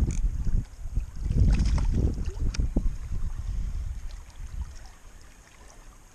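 Gusty wind buffeting the microphone, a low uneven rumble that is strongest in the first two seconds and dies down after about four seconds. A few faint clicks sound around the middle.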